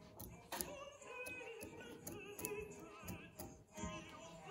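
Faint background music with operatic singing, the voice holding wavering notes.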